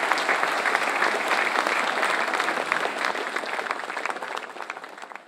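A crowd applauding, a dense patter of many hands clapping that dies away over the last two seconds or so.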